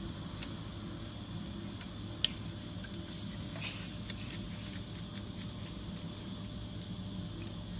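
Scattered light clicks and taps of tools and metal parts being handled while the fuel filter housing is refitted to its mounts, over a steady low hum.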